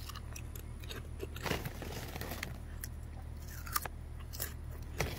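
A person chewing and biting a crunchy snack, with irregular small crunches and clicks.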